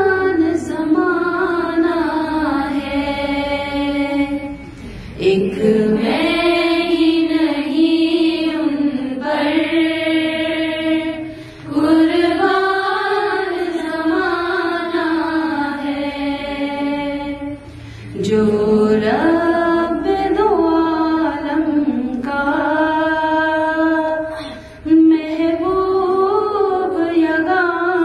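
A woman singing an Urdu naat, a devotional poem in praise of the Prophet, unaccompanied into a microphone. She holds long, drawn-out lines of one voice, pausing briefly for breath about every six seconds.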